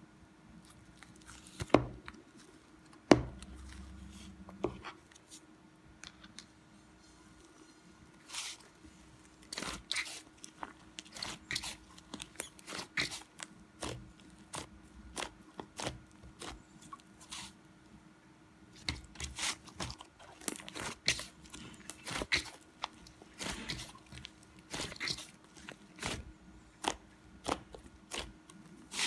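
Slime being squeezed and worked by hand, giving a run of small crackling pops and clicks. There are two sharp knocks a couple of seconds in, and a faint steady hum underneath.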